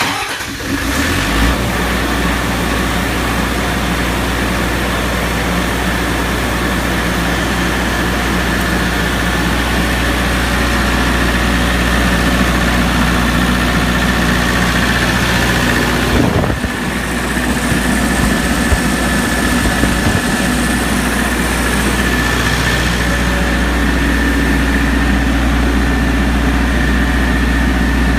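MEP-803A military generator's Lister-Petter diesel engine starting without preheat: it catches at once and settles within about a second and a half into a steady run at governed speed. About sixteen seconds in there is a brief knock and a short dip in the engine sound.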